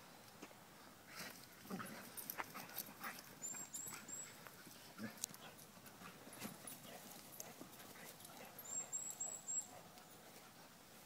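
Dogs play-fighting, making short, irregular dog sounds from about a second in until near the end. A small bird chirps quickly twice, a run of three and then a run of four.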